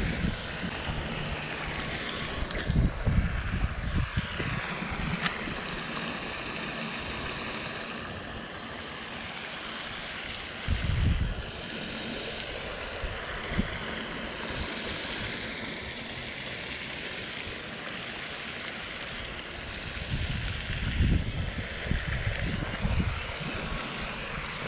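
Steady splashing hiss of a pond fountain's spray falling back on the water, with a few low rumbles of wind on the microphone and one sharp click about five seconds in.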